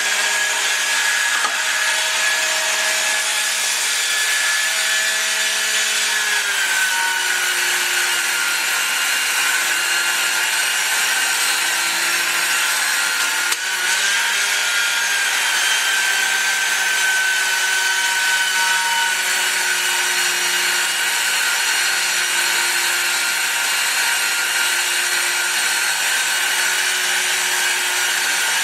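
Crankshaft belt polisher with a 400-grit belt and white rouge running against the rear main seal surface of a Willys 134 crankshaft as it turns in a Storm Vulcan 15A crankshaft grinder: a steady machine whine over a rubbing hiss. The whine drops slightly in pitch about six seconds in, and the sound dips briefly about halfway through before carrying on.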